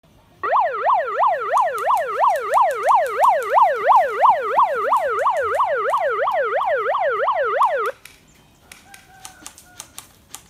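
Siren wailing in quick up-and-down sweeps, about three a second, cutting off suddenly near the end; a few faint clicks follow.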